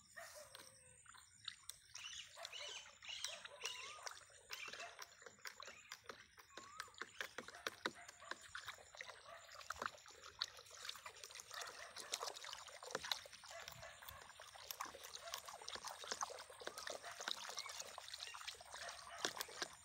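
A metal rod stirring a thick, wet powder paste in a bucket: a faint, continuous wet slosh and squelch, broken by many small clicks and knocks as the rod works through the paste and touches the bucket.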